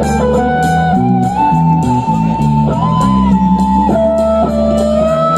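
Live rock band playing an instrumental passage: a lead guitar holds a melody line with pitch slides over bass notes and steady drums.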